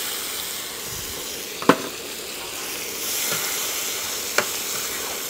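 Chopped onion sizzling steadily in hot oil in a steel wok, freshly added and being stirred. A steel ladle clinks sharply against the pan twice.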